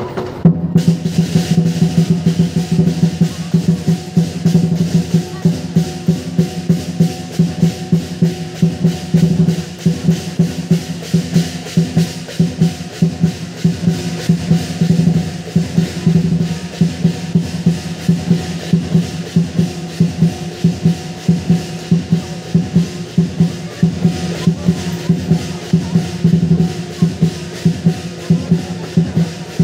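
Lion dance percussion: a large Chinese drum beaten fast and continuously, with crashing cymbals and gong. It plays a steady driving rhythm that comes in with a loud hit about half a second in.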